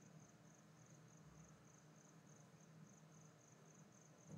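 Near silence: room tone with a faint high-pitched chirp repeating about four times a second over a low hum.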